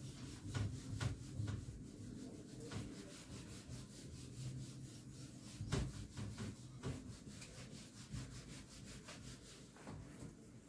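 Writing: faint, irregular scratching strokes of a writing tool rubbing across a surface, over a steady low hum.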